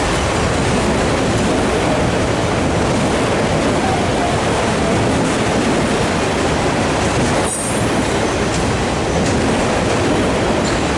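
Empty autorack freight cars rolling past at close range: a loud, steady rumble of steel wheels on the rails, with a brief dip about seven and a half seconds in.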